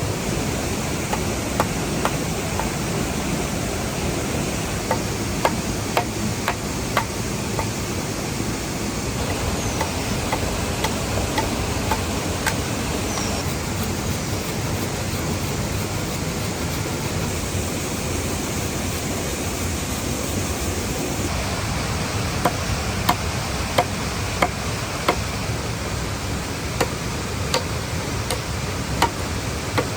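Steady rush of a waterfall under sharp, irregular knocks from hand-tool work on wood. The knocks come closer together, roughly once a second, in the last third.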